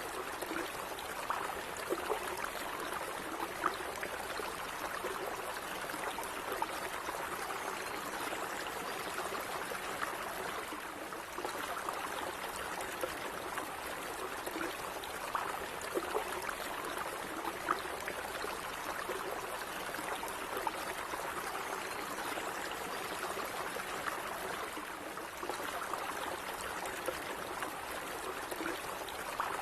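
Calm running water flowing steadily, with many small irregular splashes and gurgles on top of an even rush.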